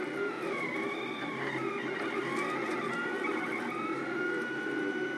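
3D printer's stepper motors whining as it prints, several thin tones sliding up and down in pitch as the head changes speed and direction.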